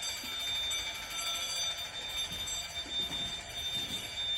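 Several building alarm sounders going off at once: a steady high-pitched electronic tone, several pitches held together without a break.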